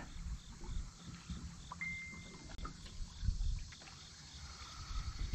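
Small waves lapping and knocking against an aluminium jon boat's hull, with wind on the microphone. A brief thin whistle sounds about two seconds in.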